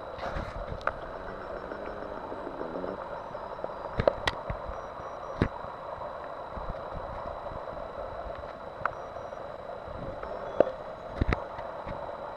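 Steady rushing background noise with a faint continuous high tone, broken by a few short sharp clicks and knocks.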